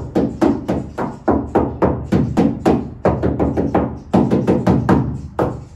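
Rapid knocking by hand on a bare steel body panel of a Nissan Skyline R32 GT-R shell, about four knocks a second, each ringing hollow and tinny because the panel has no sound deadening on it yet.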